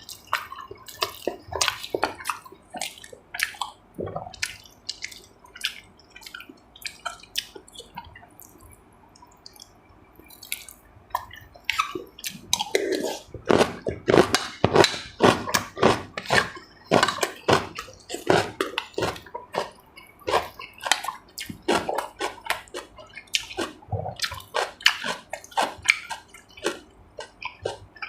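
Close-up eating sounds: wet chewing, lip smacks and slurps in a rapid run of short clicks, thinning out for a few seconds near the middle and then busier and louder.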